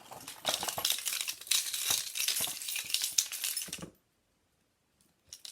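A bunch of keys jingling and clinking as they are shaken, for nearly four seconds, then stopping suddenly.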